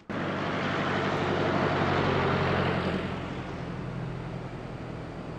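A motor vehicle passing close by: engine and tyre noise that swells to a peak about two seconds in and then fades, over a low engine hum.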